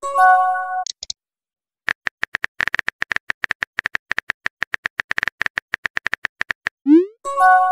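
Simulated phone-keyboard typing from a texting-story app: a fast run of key clicks lasting about five seconds, with a short chime of a few steady tones at the start and a quick rising whoosh near the end as a message is sent, followed by another chime.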